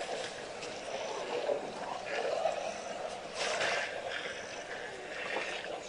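African elephants at a waterhole, with water splashing and gurgling in several short bursts over a steady background murmur.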